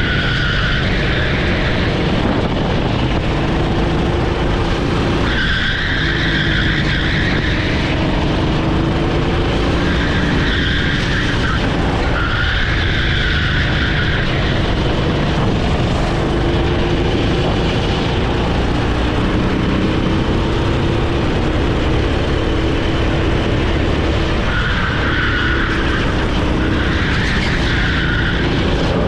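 Onboard sound of a rental kart's Honda GX390 single-cylinder four-stroke engine running hard, its note climbing as it accelerates along each straight. The tyres squeal in several stretches through the corners.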